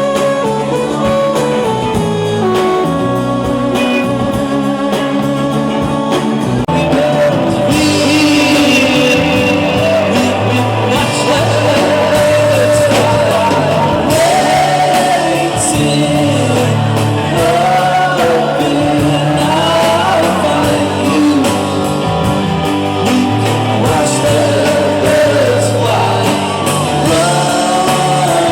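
Rock music with guitar; singing comes in about seven seconds in and carries on over the band.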